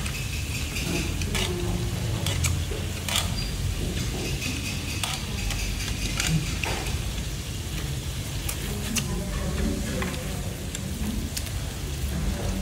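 Pork and seafood sizzling on a Korean barbecue grill pan. Scattered clicks of metal tongs and chopsticks against the pan can be heard over it.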